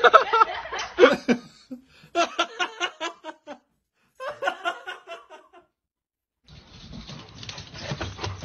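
A person laughing in runs of quick pulses, in two stretches with short silences between. A loud outburst of voice comes at the start, and a steady noise takes over near the end.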